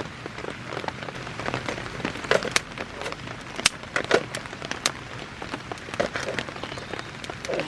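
Steady rain falling, with irregular sharp crackles and ticks scattered through it.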